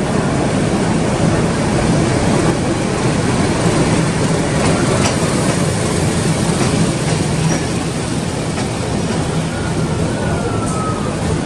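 Bangladesh Railway diesel-hauled passenger train rolling slowly into the station beside the platform, with a steady low rumble of locomotive and coaches and a few sharp clicks of the wheels over the rails.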